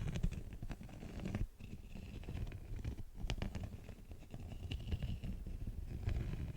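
Close-miked crinkling and handling of a beeswax wrap: a continuous dense crackle with a low rumble, with a few sharper crinkles about three seconds in.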